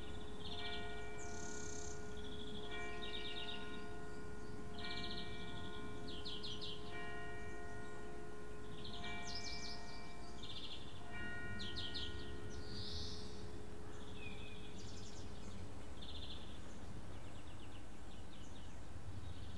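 Church bell tolling: single strokes about every two seconds, each ringing down, six in all, stopping about two-thirds of the way through with the hum dying away just after. Small birds chirp and trill throughout.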